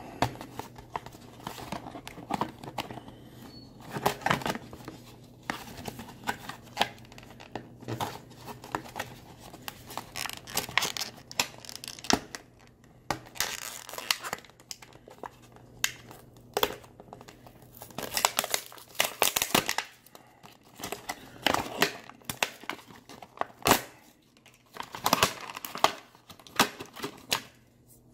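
A stiff clear plastic blister pack and its card backing are crinkled, bent and torn apart by hand, in irregular crackles with louder spells of a second or two every few seconds.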